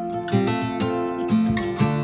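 Background music: an acoustic guitar strumming chords, with a strum about every half second.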